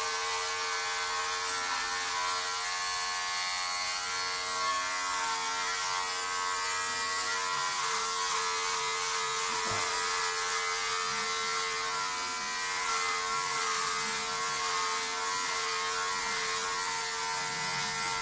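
Electric hair trimmer running with a steady, even buzz as it is worked over the scalp to shave the head.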